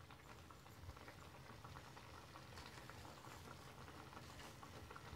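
Faint, steady bubbling and crackling of a thick curd-based chicken gravy simmering in a pan.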